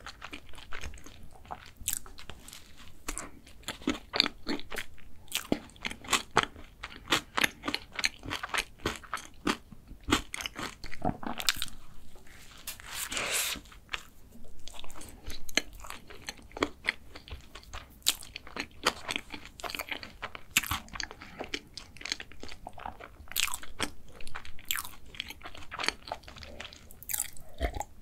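Close-miked chewing and biting of a soft chocolate dessert: a dense run of sharp, wet mouth clicks and smacks. About thirteen seconds in there is a longer, wetter smacking as fingers are licked.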